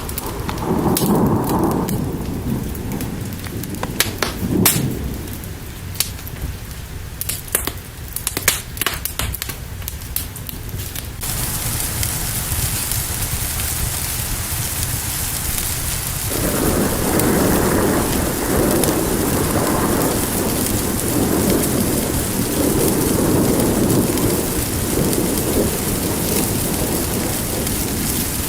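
Sharp crackling clicks of a fire over low rumbles for the first part. About eleven seconds in, this cuts abruptly to steady heavy rain, with rolling thunder joining from about sixteen seconds.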